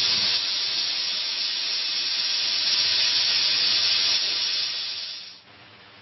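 Jeweler's soldering torch hissing steadily as its flame heats the solder seam of a ring shank, then falling away quickly about five seconds in.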